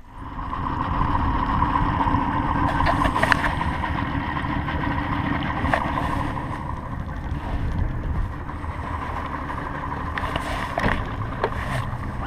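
Bay boat's outboard motor running with the boat underway: a steady engine drone mixed with wind and water noise, with a few sharp knocks.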